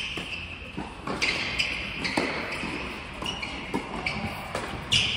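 Tennis ball being struck by rackets and bouncing on a hard indoor court during a doubles rally: sharp pops about once a second, each ringing on in the hall's echo.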